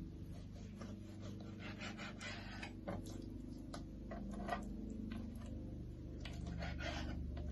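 Knife slicing raw chicken breast on a cutting board: irregular light clicks and taps of the blade on the board, with a couple of short scratchy cutting strokes.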